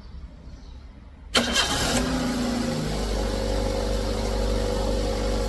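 Perodua Myvi engine cranked by the starter about a second in, catching almost at once and settling into a steady idle. It starts without blowing the EFI fuse, a sign that the short in the injector wiring harness has been cleared.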